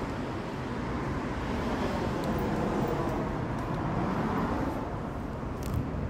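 Steady road traffic noise from a nearby road, an even rush that swells a little in the middle.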